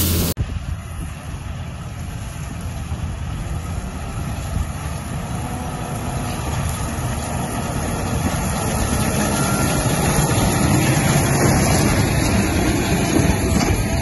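Tractor engine and a Massey Ferguson 2290 large square baler running while baling straw, growing steadily louder as they come nearer.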